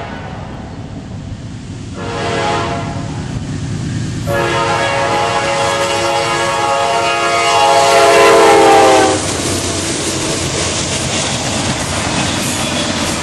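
Freight locomotive horn sounding a short blast about two seconds in, then a longer, louder blast that cuts off around nine seconds, over the rumble and clatter of the train running past.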